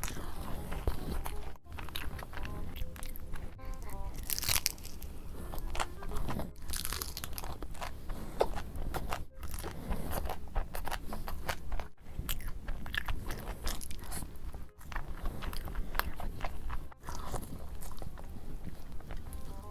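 Close-miked eating: a person biting and chewing crunchy food, with many sharp crunches in quick succession.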